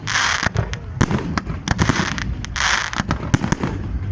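Fireworks display: aerial shells bursting in quick, irregular bangs, with two spells of crackling hiss, one at the start and one about two-thirds through.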